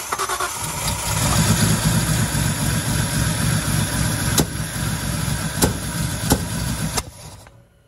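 Datsun 240Z's L28 straight-six running roughly, with several sharp pops (backfires) in the second half before it cuts out about seven seconds in. The misfiring and backfiring come from the spark plug wires on cylinders 2 and 3 being swapped.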